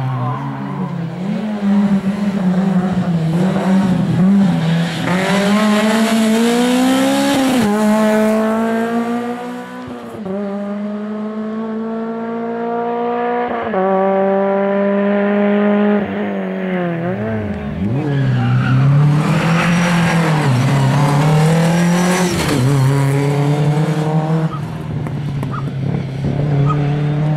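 Rally cars at full throttle on a tarmac sprint stage, engines revving up through the gears, the pitch climbing and dropping back at each gear change, several cars in turn.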